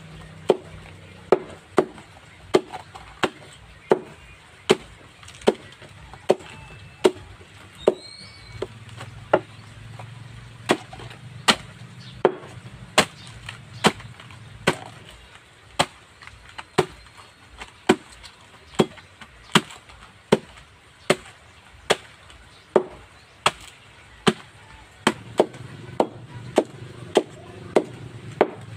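A long knife chopping banana-trunk sheaths into small pieces against a wooden board, in a steady rhythm of sharp chops a little over one a second.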